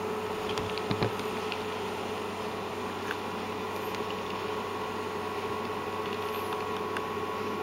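Steady background hum and hiss, with a few faint ticks about a second in and another about three seconds in.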